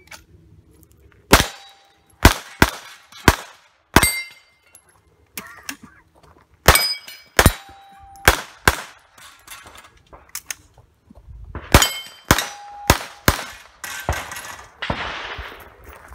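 Rapid 9mm pistol fire from a Glock 17 Gen 4, about twenty shots in uneven strings with a short pause about two-thirds through. Several hits on steel plates ring out with a clang after the shot.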